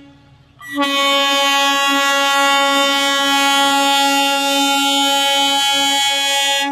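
Horn of a Phooltas rail track machine: a long, steady blast at one pitch that starts abruptly just under a second in, after a brief pause, and stops near the end.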